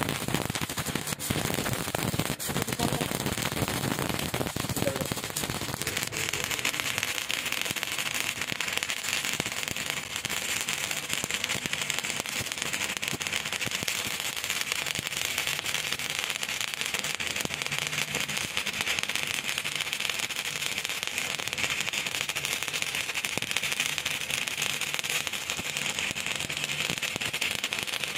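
Stick-welding arc crackling steadily as the electrode burns along the steel. It is fuller at first and settles into an even, higher crackle after about six seconds.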